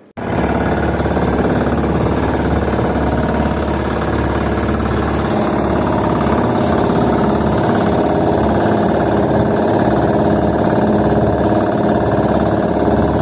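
A small fishing boat's engine running steadily under way, loud and close. It cuts in abruptly at the start and holds an even note throughout.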